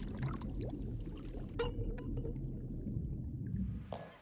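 Underwater sound effect of low bubbling and gurgling, with a few small clicks, for a ring sinking through the sea. It fades out just before the end.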